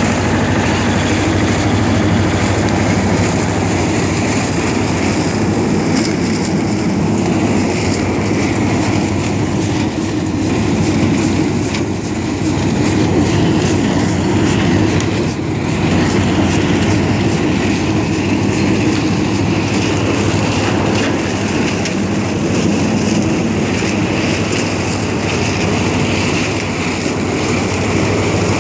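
SIP corn picker driven by a Same tractor, running at work through standing maize: a steady, loud mechanical clatter of the picker together with the tractor engine.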